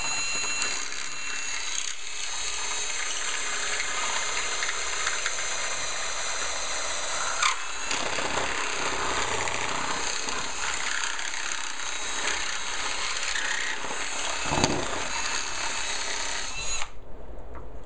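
Cordless drill running steadily as it bores a hole into the metal bottom track of a sliding patio door, with a couple of brief knocks along the way; the drill stops shortly before the end.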